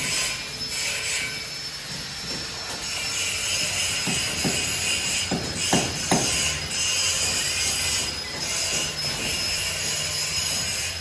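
Tiling work on a building site: a steady high-pitched whine with a hiss, and a handful of sharp knocks around the middle.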